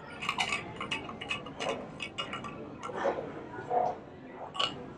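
Small stainless steel cup being handled: a series of light, irregular metallic clicks and taps, each with a brief ring.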